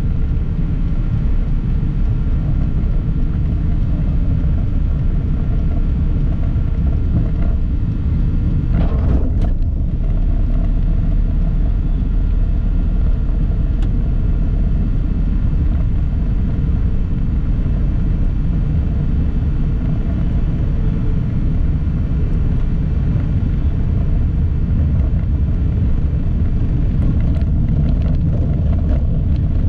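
Steady low rumble of a vehicle driving along a city road, heard from on board, with a brief louder noise about nine seconds in.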